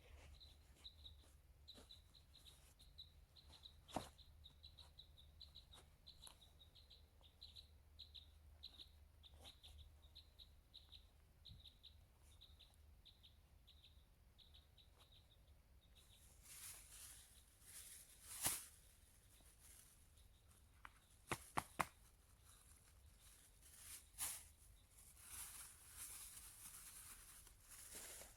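A small bird repeating a short, high chirp a few times a second over a faint background, stopping a little past halfway. Then a soft hiss with several sharp clicks or snaps, three of them in quick succession.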